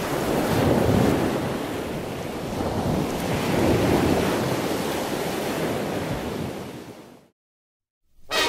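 Ocean surf breaking, swelling twice, then fading out into about a second of silence. Theme music starts right at the end.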